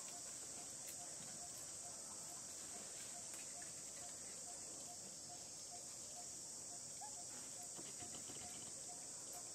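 Steady, high-pitched drone of a forest insect chorus, with a faint short low note repeating about three times a second under it.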